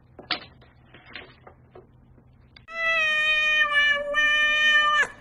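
A cat gives one long, drawn-out meow, held at a steady pitch and dipping slightly near its end, starting a little over halfway through. Before it there are only a few faint taps.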